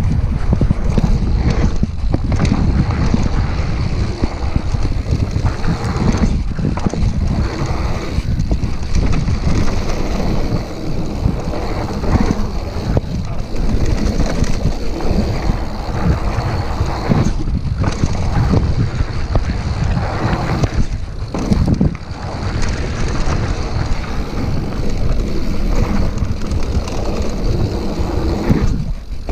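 Wind buffeting the microphone of a camera on a mountain bike descending fast, mixed with the tyres rolling over a dry dirt trail: a loud, steady rush that dips briefly a few times.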